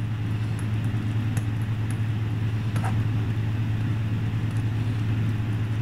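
Steady low hum from room equipment, with a few faint scratches of a ballpoint pen writing on a paper form.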